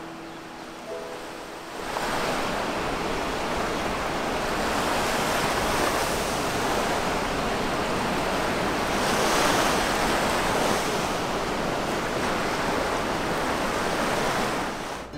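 Ocean surf: a steady rush of waves breaking and washing up on a beach, swelling a little about nine seconds in.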